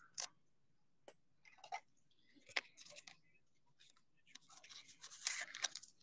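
Faint, scattered clicks and rustles of trading cards and their packaging being handled, with a denser flurry about five seconds in.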